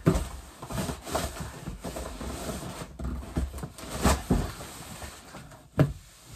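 Household items and their packaging being shifted and handled, with several knocks and thumps, the sharpest shortly before the end.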